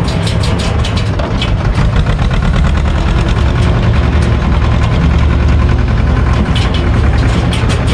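SAME tractor's diesel engine running steadily under way, heard from the towed trailer, with a rapid clatter of the trailer jolting over rough gravel.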